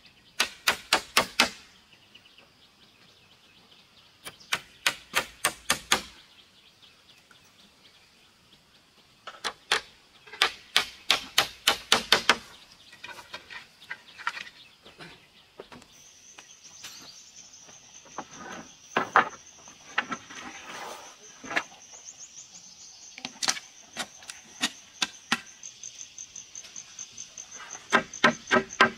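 Claw hammer driving nails into wooden planks: three quick runs of sharp strikes in the first twelve seconds. Later a machete knocks on a wooden board in short scattered blows, while an insect keeps up a steady high trill from about the middle on.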